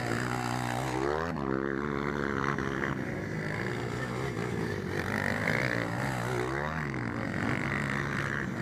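230 cc motocross bike engines racing on the track, revving up and down. The throttle drops off and picks back up about a second in, and again about two seconds before the end.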